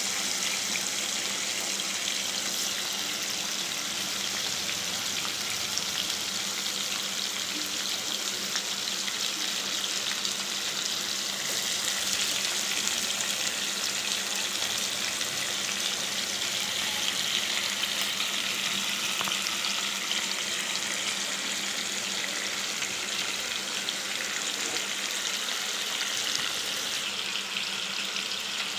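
Raw prawns sizzling in hot oil in a nonstick pan, a steady hiss.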